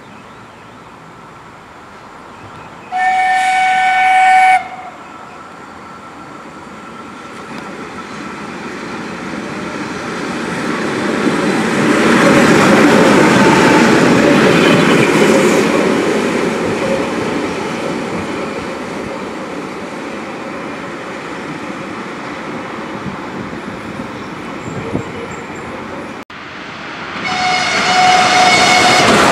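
Railway locomotive horn blowing one steady blast of about a second and a half, then a train passing: the rumble swells to its loudest about halfway through and slowly fades. Near the end, after a sudden break, a horn starts up again.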